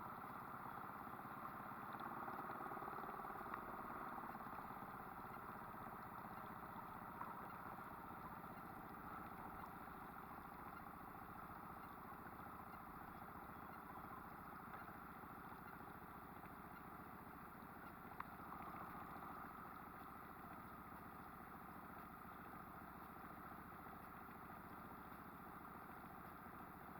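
Outboard motor running steadily at slow backtrolling speed, faint, with a few light ticks.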